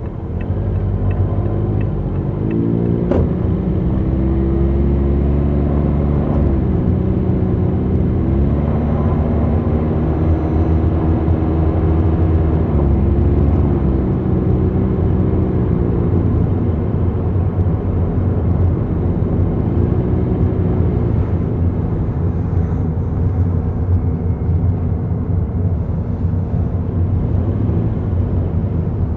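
Car engine and road rumble while driving, the engine note rising and falling several times as the car speeds up and slows.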